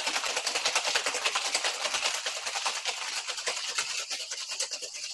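Ice rattling hard and fast inside a two-piece metal cocktail shaker being shaken vigorously, the hard shake meant to break up marmalade in the drink. The rattling eases off slightly near the end.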